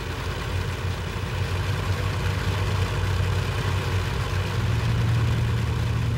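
B-25 bombers' piston engines running, a steady low drone with a rushing hiss, growing louder about four and a half seconds in.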